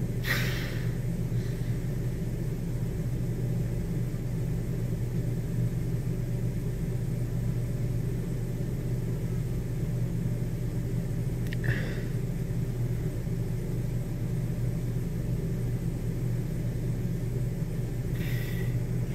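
A steady low hum and rumble at an even level, with three short high chirps: near the start, about twelve seconds in, and near the end.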